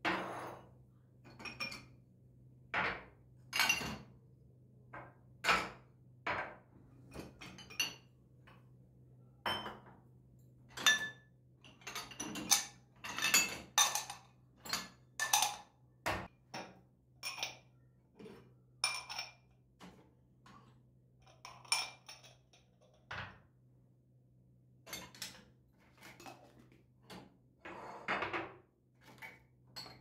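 Glass tumblers and dishes clinking and knocking as they are lifted out of a dishwasher's wire racks and set down on a countertop: a long irregular string of clinks, some with a short glassy ring, over a low steady hum.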